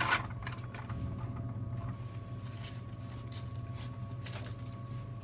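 Nickels being loaded into a vending machine's coin mechanism, giving scattered sharp metallic clicks, the loudest right at the start, over a steady low hum.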